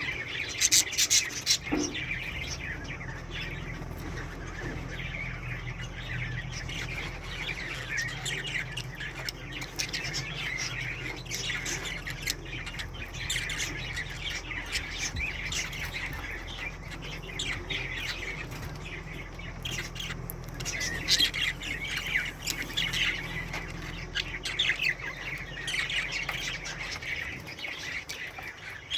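Pet budgerigars chattering steadily with chirps and squawks, in louder flurries about a second in and again about two-thirds of the way through.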